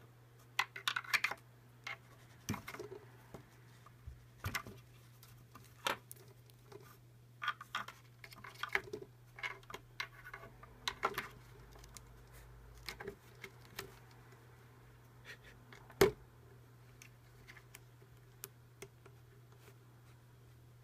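Scattered taps, clicks and scratches of a pencil knocking and scraping against a wooden desk and its metal rail while a cat swipes at it, with one louder knock past the middle. A steady low hum runs underneath.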